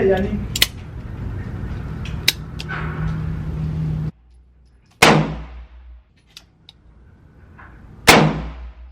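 Gunshots: a few sharp cracks over steady background noise, then, after an abrupt cut, two loud shots about three seconds apart, each ringing out for most of a second.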